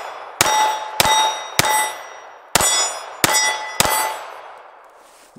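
Six pistol shots from a Taurus Spectrum .380 ACP firing Fiocchi 95-grain target loads, in two quick groups of three, each hit answered by the ringing of a steel target plate. The ringing dies away over the last second or so.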